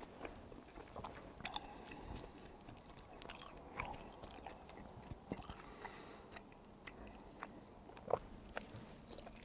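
Close-miked eating of tteokbokki, chewy rice cakes in spicy sauce: chewing and biting with scattered sharp clicks and smacks, the loudest about eight seconds in.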